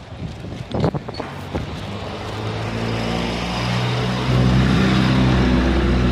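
A motor vehicle's engine running at a steady speed, growing louder as it comes close, with a further jump in loudness about four seconds in. A couple of sharp knocks sound about a second in.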